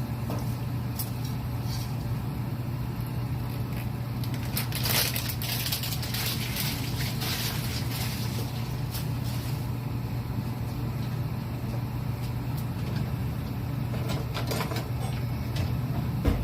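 Pan of water at a rolling boil with spaghetti in it on the stove: a steady rushing noise over a constant low hum. A few light clicks, and a brief louder rustle about five seconds in.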